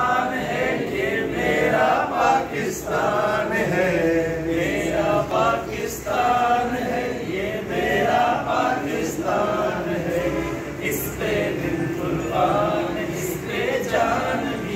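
A group of men singing together in chorus.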